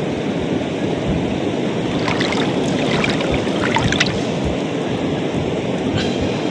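Strong wind rumbling on the microphone over shallow seawater lapping around the waders' legs, with a few faint splashes or ticks about two to four seconds in.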